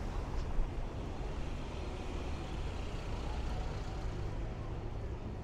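Busy city street ambience: a steady low rumble of motor traffic under a general haze of street noise, with one brief knock about half a second in.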